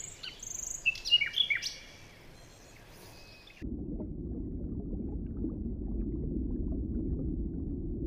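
Bird chirps and short whistling calls of a forest ambience sound effect. About three and a half seconds in it cuts abruptly to a steady low, muffled rumble of underwater ambience.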